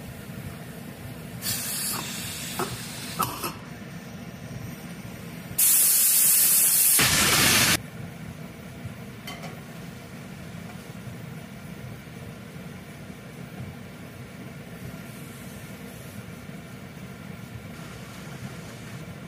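Stainless steel pressure cooker venting steam through its weight valve: a short hissing spurt about two seconds in, then a loud blast of steam lasting about two seconds that cuts off suddenly. The venting is the cooker's whistle, the sign that it has come up to pressure.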